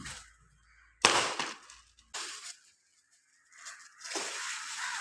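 Sudden loud crack of wood breaking, as in cutting a coconut tree, about a second in, with a smaller crack about a second later; a steady hiss follows near the end.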